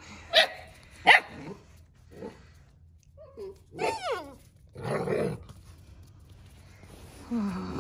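Six-week-old Central Asian Shepherd puppies yapping and barking in play: two sharp yaps within the first second or so, then a few higher yelping calls that bend in pitch around the middle, and a lower, falling bark near the end.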